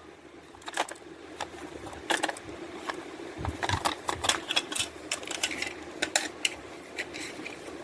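Hands handling a cassette tape and its packaging: irregular small plastic clicks and crinkles, with a faint steady hum underneath.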